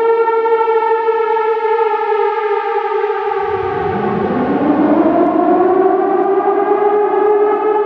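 Air raid siren sounding a steady tone while part of it slides down in pitch; about three seconds in, a fresh wind-up rises from a low pitch and levels off to a steady tone by about six seconds.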